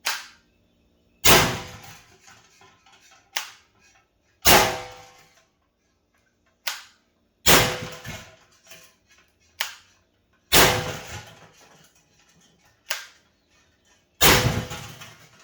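Five shots from an Umarex T4E HDR 68 .68-calibre air pistol converted to a carbine and fed by a high-pressure-air tank, spaced about three seconds apart. Each shot is a sharp pop with a short tail, and fainter sharp knocks fall between the shots.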